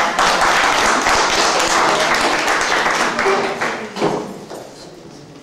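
A small audience clapping for about four seconds before it fades away.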